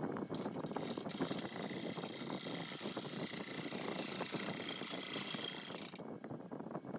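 Bowl gouge cutting the inside of a spinning maple burl bowl with epoxy-filled voids on a wood lathe: a continuous rough hiss of shavings with fine, rapid ticking. The high hiss cuts off about six seconds in, when the tool comes off the wood.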